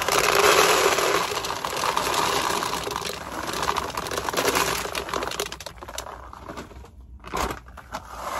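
Dry rabbit feed pouring out of a woven plastic bag into a plastic container: a dense rattling patter with the bag rustling. It thins out and stops briefly near the end, then comes back in a short burst.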